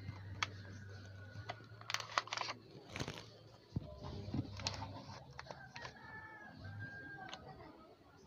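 Crinkling and clicking of a thin clear plastic sheet being pressed and adjusted in a loudspeaker's voice-coil gap, as a shim to centre the coil so the speaker will not play distorted. Several short crackles, the loudest about two and three seconds in.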